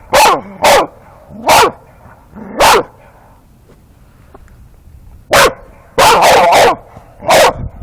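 Dog barking in short, loud barks: four spaced out over the first three seconds, then a pause, then a quicker run of about five.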